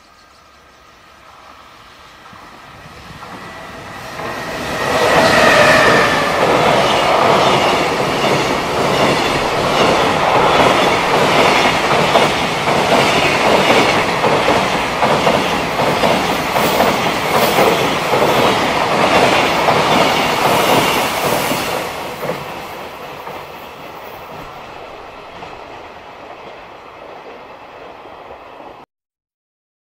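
JR Freight EF210 electric locomotive hauling a long container train past at speed. The sound grows as the train approaches, and a brief falling whine marks the locomotive going by about five seconds in. The wagons' wheels then clatter rhythmically over the rail joints, fading from about 22 seconds and cutting off abruptly near the end.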